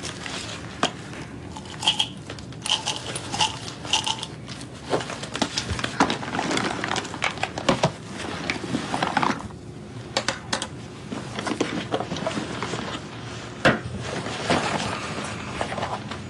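Bags being searched by gloved hands: irregular rustling of fabric and contents, with small items knocking and clinking as they are handled and set down.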